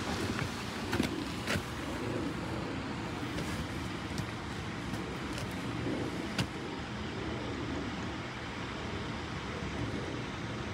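Steady outdoor background noise, a constant hiss and rumble, with a few faint clicks: two in the first couple of seconds and one about six seconds in.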